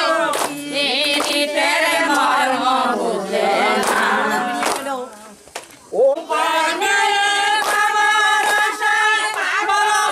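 A group of voices singing together, led by women, with a short break about five seconds in before the singing picks up again on long held notes.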